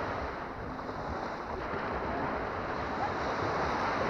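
Small Baltic Sea waves breaking and washing up on a sandy beach as a steady surf.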